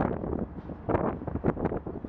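Wind buffeting the microphone in irregular gusts, with sharp crackles as the stronger gusts hit, over a steady low rumble.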